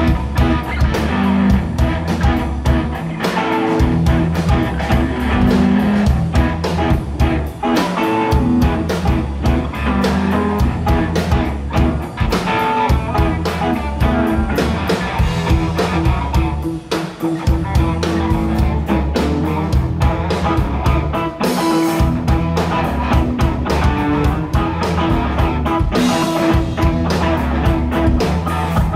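Live blues-rock band playing: electric guitars over bass guitar and a drum kit keeping a steady beat.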